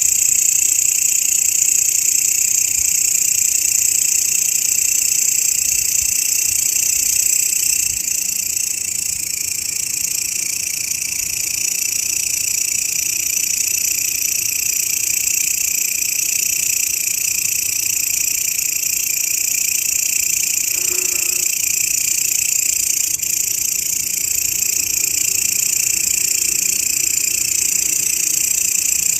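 Grasshopper stridulation: a continuous, steady, high-pitched buzzing drone without pauses.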